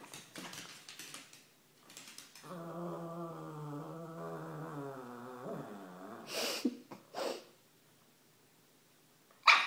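Cavalier King Charles Spaniel giving a drawn-out, low moaning whine for about three seconds that drops in pitch at the end, the kind of grumbling 'talk' a dog makes when asking to play. It is followed by two short, breathy puffs of air.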